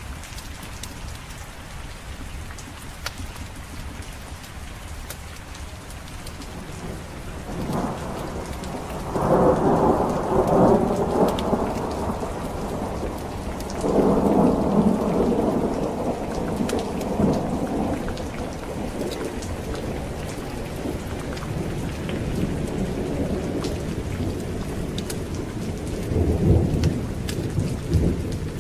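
Steady heavy rain with thunder rolling through it: a long rumble builds about eight seconds in, a second comes a few seconds later, and a shorter one near the end.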